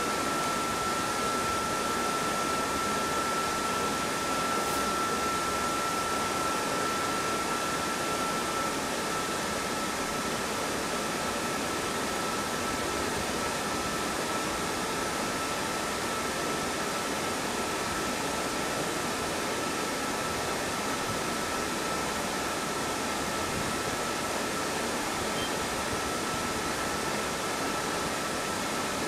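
Steady machine-fan noise: an even hiss with a thin, steady high whine that weakens slightly about eight seconds in.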